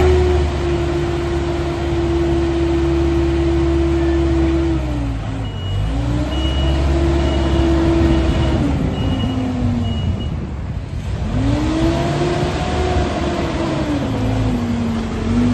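Diesel engine of a Merlo P40.17 telehandler revving up and dropping back three times as the machine is driven about. In the middle there is a run of about seven evenly spaced high beeps, the reversing alarm.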